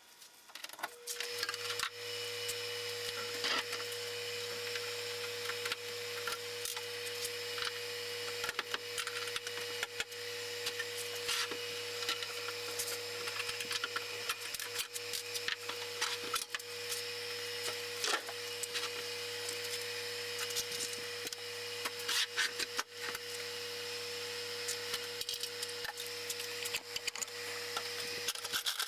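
A small electric motor switches on about a second in and runs steadily with a constant hum, over a continuous rattling, clicking scrape.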